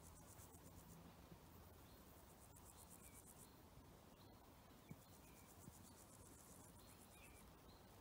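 Quiet wetland ambience: a faint, high, rapidly pulsing insect chirring that comes and goes in spells, with a few short high bird notes and a single soft tick about five seconds in.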